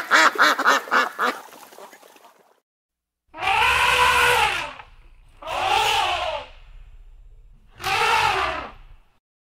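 An animal calling: a rapid run of short pitched calls, about six a second, that fades away, then after a pause three long calls, each rising and then falling in pitch, over a low rumble.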